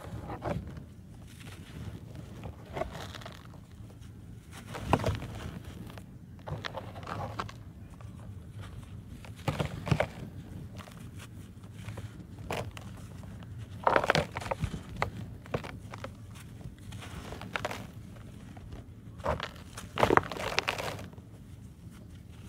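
Hands crumbling dry lumps of dirt, with loose soil sifting down between irregular crunches. The crunches come every few seconds, the loudest a little past halfway and near the end.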